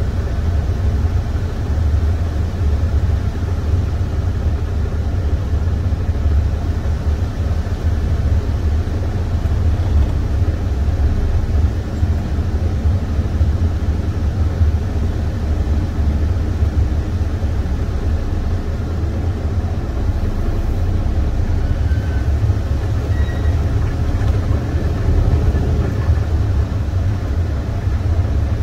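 Diesel engine of a semi truck idling steadily, a low, even rumble.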